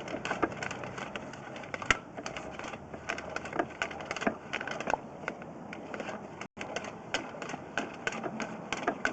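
Sewer inspection camera being pushed along a drain line: rapid, irregular clicking and rattling from the camera and its push cable, over a steady rush of running water.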